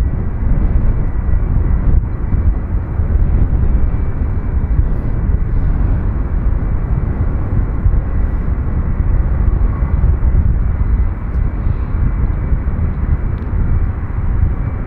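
Boeing 757-200 freighter's Rolls-Royce RB211 jet engines running at low thrust as it lines up on the runway for takeoff: a steady deep rumble with a faint high whine over it.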